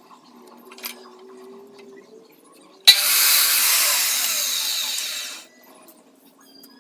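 A handheld power tool starts with a sharp click about three seconds in, runs with a high, hissy whir for about two and a half seconds, then stops.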